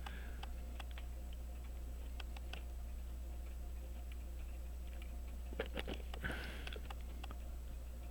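Faint, irregular small clicks of tools and tiny parts being handled on a pocket watch movement during assembly, over a steady low hum. A denser cluster of clicks with a short hiss comes about six seconds in.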